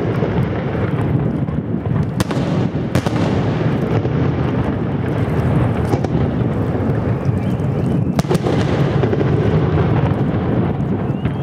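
Fireworks display: a dense, continuous rumble of bursting fireworks, with sharp bangs about two, three, six and eight seconds in.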